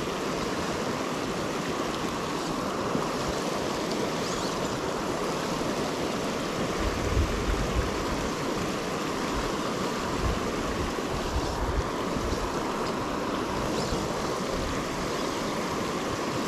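A river running steadily over granite, a constant rushing of moving water, with a few brief low rumbles around the middle.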